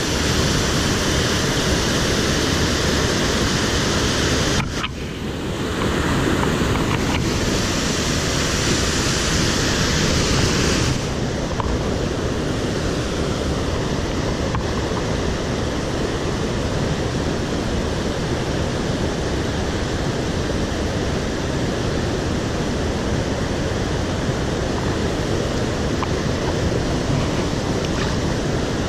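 Rushing water of a mountain stream pouring over a small waterfall and cascades, a steady loud hiss. It dips briefly about five seconds in and its tone shifts about eleven seconds in.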